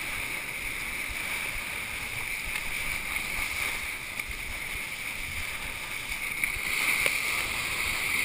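Rush of water under a kiteboard and wind buffeting a chest-mounted GoPro as the rider skims across the water, a steady noise that swells louder about seven seconds in.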